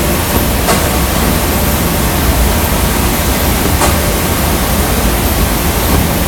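Steady, loud machinery noise of a glassworks hot shop, the continuous noise of gas-fired furnaces and blowers, with two faint clicks, one under a second in and one near four seconds.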